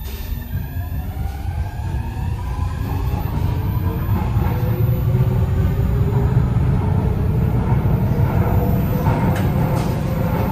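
Copenhagen Metro train pulling away from a station and accelerating, heard from inside the car. The electric traction motors give a whine that rises steadily in pitch, over a rumble from the wheels and track that grows louder during the first few seconds.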